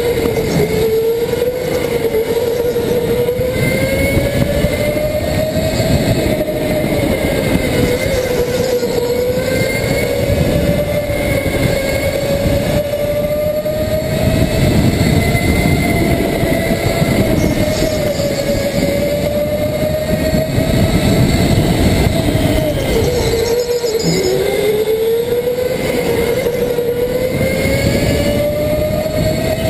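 Go-kart heard from on board at racing speed: its motor's whine rises and falls with speed through the corners over a steady rumble of chassis and tyres, dipping sharply and climbing again about three-quarters of the way through as the kart slows for a turn and accelerates out.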